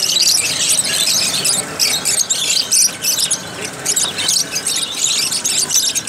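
A cage full of lovebirds (Fischer's and masked) chattering at once: a dense, unbroken stream of shrill, high-pitched chirps and screeches.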